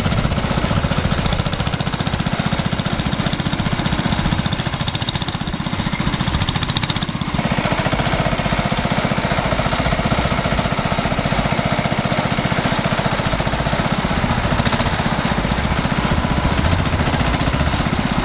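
A 1971 Sears Suburban 12 garden tractor's engine running steadily under load as it pulls a cultivator through garden soil, its note shifting a little about seven seconds in.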